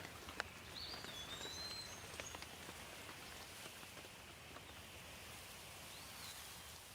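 Steady light rain hissing, with scattered drops tapping close by. A bird gives a short whistled call about a second in and again near the end.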